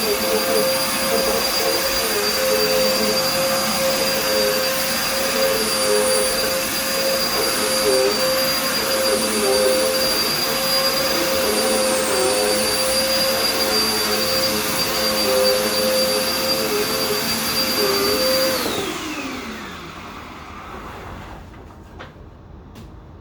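Vacuum cleaner running with a steady whine over its airflow noise, then switched off about 18 seconds in, its pitch falling as the motor winds down. It is noisy enough that its user calls it too much noise, with weird sounds coming from it.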